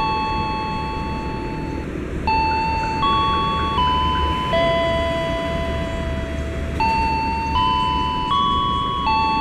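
A slow melody of bell-like electronic chime notes, each note ringing on and fading before the next, with a low rumble of the approaching train beneath.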